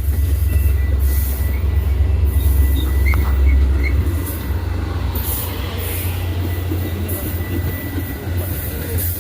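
Metra commuter train with its MP36 diesel locomotive rolling into the station: a heavy, continuous low rumble with a thin, steady high-pitched squeal over it.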